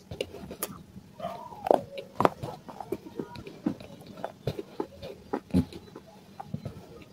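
Close-up chewing and crunching of a mouthful of clay, with sharp crunches and wet mouth clicks and smacks, the loudest crunches about two seconds in.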